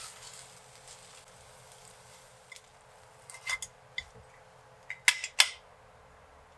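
Wooden chopsticks and a spatula scraping and tapping in a non-stick frying pan while an egg crepe is rolled, then a few sharp clinks of the pan and a ceramic plate, loudest about five seconds in, as the crepe is slid onto the plate.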